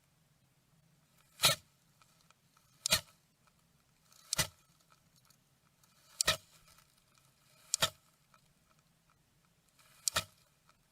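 Blue tit in a nest box giving its defence hiss, a sudden sneeze-like burst of noise, six times at irregular gaps of one to two seconds. A faint low hum lies underneath.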